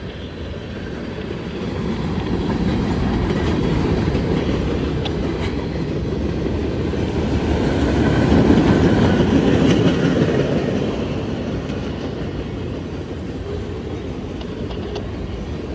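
Cars of a mixed freight train rolling past: a steady rumble of wheels on rail with occasional clicks, swelling to its loudest about halfway through and then easing off.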